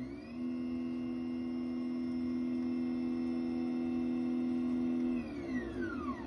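Stepper motors of a DIY Arduino/GRBL CNC pen plotter whining as the gantry makes a rapid travel move. The pitch settles onto two steady tones just after the start, holds for about five seconds, then glides down near the end as the machine decelerates to a stop.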